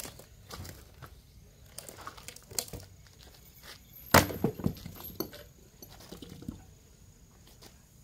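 Axe blows on a log being split for firewood: a few lighter knocks in the first three seconds, then one loud sharp chop about four seconds in, followed by a few smaller knocks.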